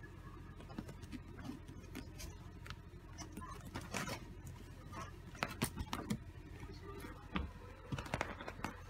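Kittens clambering and play-fighting on a fabric couch cushion: faint, irregular scratches and clicks of their claws, with a few sharper taps scattered through.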